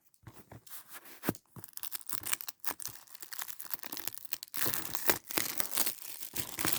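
Plastic packaging on a Blu-ray case being crinkled and torn in the hands, in irregular crackles that grow denser and louder about two-thirds of the way in.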